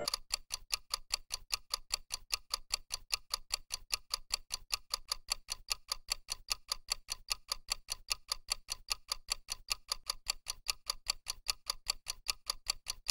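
Countdown timer's clock-tick sound effect: rapid, evenly spaced identical ticks, several a second.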